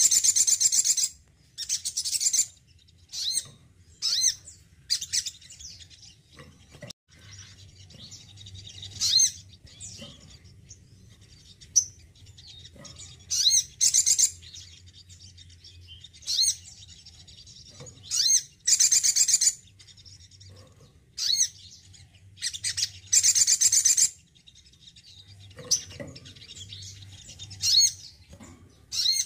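Male olive-backed sunbird singing in short, high, rapid twittering bursts, one every second or two, with some longer phrases. A faint steady low hum runs underneath.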